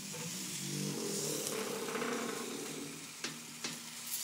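Steel-drum barbecue lid being lifted open, with a drawn-out metallic tone as it swings and a couple of clunks a little after three seconds in. Under it, spit-roasting chickens sizzle over the charcoal.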